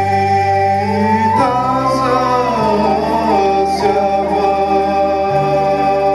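Live Bulgarian folk music through a PA: men singing long held notes together into microphones over the band. About a second in, the melody winds down through a quicker run before settling back into held notes, over a steady bass that steps to a new note a few times.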